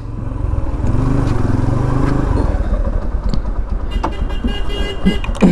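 Motorcycle engine running at low speed with street noise around it. A vehicle horn sounds for about a second near the end.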